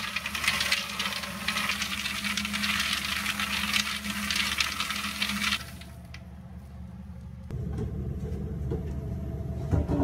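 Popcorn rattling and tumbling against the sides of a stainless steel kettle as it is stirred, over a steady hum. The rattle stops about six seconds in, and a lower rumble follows.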